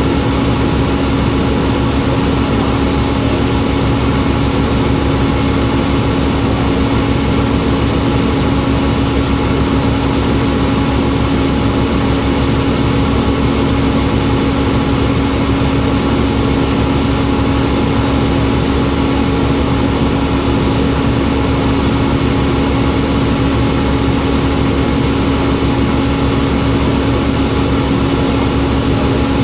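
Cummins ISL straight-six diesel engine of a New Flyer D40LF city bus idling steadily, heard from inside the passenger cabin as a constant low hum with no revving.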